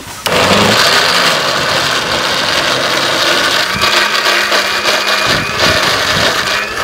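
Electric mixer grinder switched on a moment in, its motor running steadily at full speed as it blends black grapes into juice in the jar.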